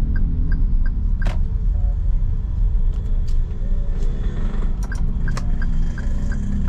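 Inside a 2023 Daihatsu Xenia's cabin while driving slowly: a steady low rumble of engine and road noise, with small even ticks about three a second, the sound of the turn-signal relay, and a few sharp knocks.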